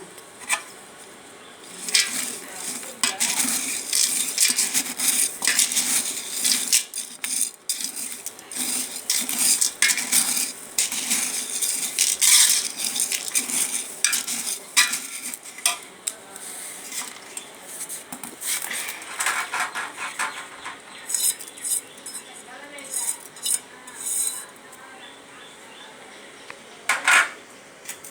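Metal kitchen utensils and vessels clinking and scraping against each other in irregular bursts.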